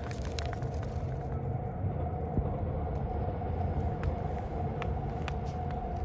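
A motor vehicle running: a steady low rumble with a constant hum over it, with a few faint ticks scattered through.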